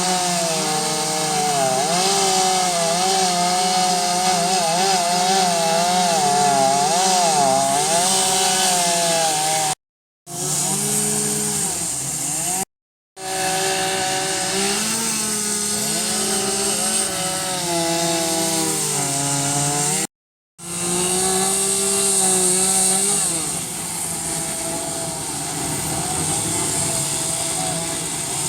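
Chainsaw cutting into a redwood log, its engine pitch wavering up and down as the chain bites and eases. The sound breaks off abruptly and restarts three times.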